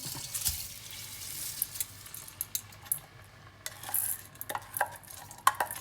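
Washed rice sizzling in melted butter and minced garlic in a pot, with a utensil scraping and clicking against the pot as the rice is stirred in.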